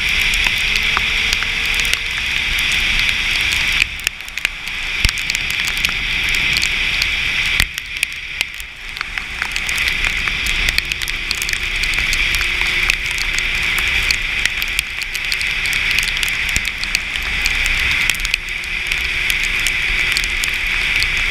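Wind and rain noise on a motorcycle-mounted camera at road speed: a steady rushing hiss peppered with small ticks of raindrops striking the camera, with a faint engine drone underneath. The rush dips briefly twice, about four and eight seconds in.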